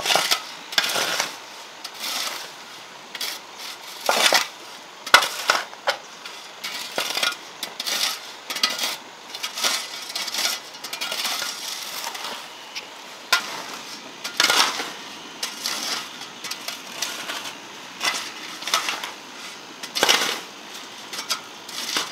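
A metal shovel scraping and scooping gravelly soil along a concrete edge, in irregular gritty scrapes every second or so.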